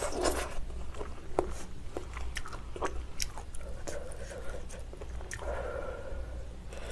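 Close-miked eating sounds: chewing and slurping mouthfuls of spicy malatang, with scattered sharp clicks of wooden chopsticks against the stainless steel pot.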